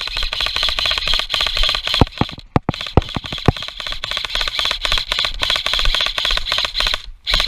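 Electric airsoft gun firing long full-auto bursts: a rapid run of shots over a steady high whine from the gearbox, with a short break about two and a half seconds in and a stop near the end.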